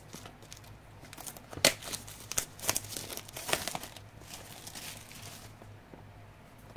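Packaging crinkling and rustling as it is handled and unwrapped: a run of irregular crackles with a sharp one about a second and a half in, dying away after about five and a half seconds.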